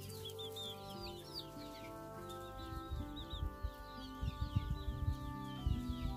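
Araucana-type (green-egg) chickens clucking, with quick high chirps throughout, over soft background music of long held notes. Low rough bumps come in more often and louder from about halfway.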